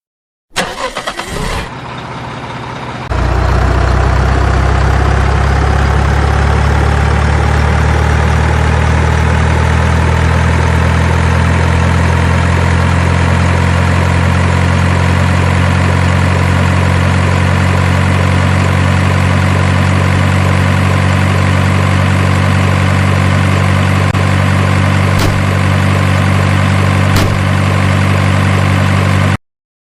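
Heavy engine starting and then running steadily with a deep low rumble, its whine rising at first and then levelling off; it cuts off abruptly near the end. Two short clicks come late on.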